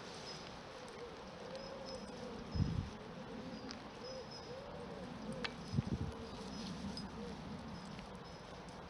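Faint buzzing of a flying insect, its pitch rising and falling again and again, with two low bumps about two and a half and six seconds in.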